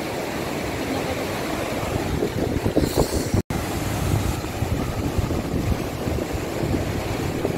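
Fast white-water mountain river rushing over rocks, a steady roar with wind buffeting the microphone. The sound cuts out for an instant a little over three seconds in.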